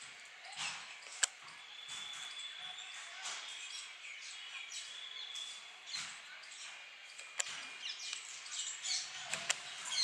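Birds chirping with short high calls, a thin whistle held twice, and three sharp taps of a woodpecker's bill on the railing, one about a second in and two near the end.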